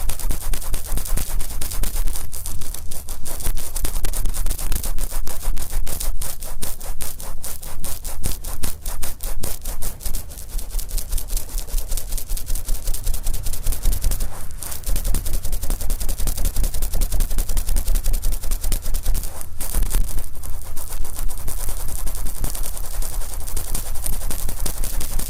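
Wet, oiled cotton swab rubbing over the outer ear of a binaural microphone, heard right at the mic as rapid crackling, scratchy strokes with a few short breaks.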